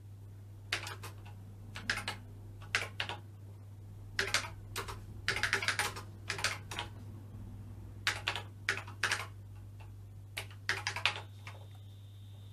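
Typing on the BBC Master 128's keyboard: irregular runs of key clicks, single presses and quick bursts, over a steady low hum. Near the end the typing stops and a steady high-pitched whine starts.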